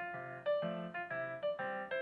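Background music: a light, bouncy keyboard tune, notes struck on an even beat of about two a second over a plodding bass line.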